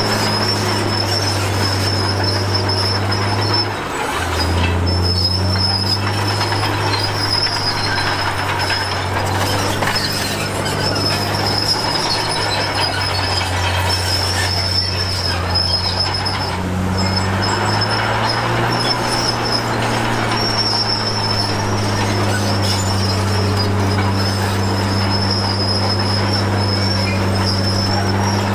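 Bulldozer's diesel engine working under load, its pitch shifting a couple of times as the load changes, with a thin, steady high-pitched metallic squeal running over it.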